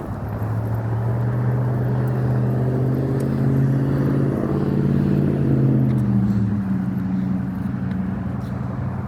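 Motor vehicle engine running steadily close by, its pitch sliding down a little past the middle as it passes.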